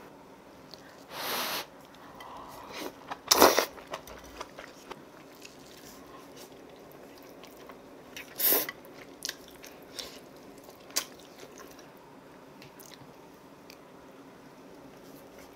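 Close-miked eating sounds of a person eating braised kimchi stew with pork back ribs: three loud eating noises about one, three and a half (the loudest) and eight and a half seconds in, with quiet chewing and a few small clicks between.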